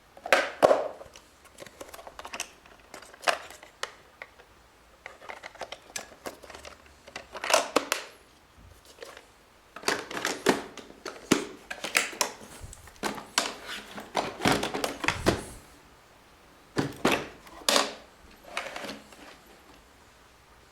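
Hard plastic parts of a robot vacuum being handled: irregular clicks, knocks and rattles in bunches, loudest right at the start.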